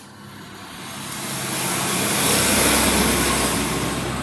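A passing vehicle: a rushing engine noise with a low hum that swells over about two seconds and then eases off a little.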